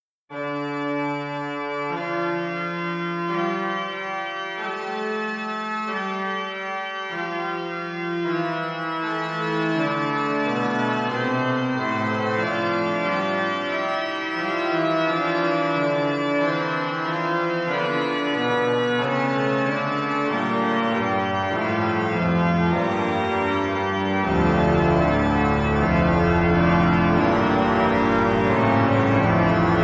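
Pipe organ playing a fugue on the virtual composite organ of Notre-Dame de Paris, starting out of silence. Voices enter one after another and the texture thickens and grows louder, with a deep bass part coming in near the end.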